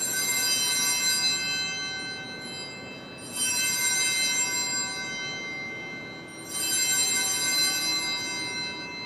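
Altar bells rung three times, about three seconds apart, each ring left to fade. They mark the elevation of the chalice at the consecration.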